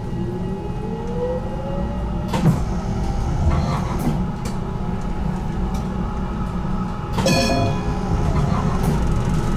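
HTM GTL8 tram running on its track, heard from on board: a steady low rumble with a whine rising in pitch over the first two seconds, a few sharp clicks, and a brief high-pitched ringing tone about seven seconds in.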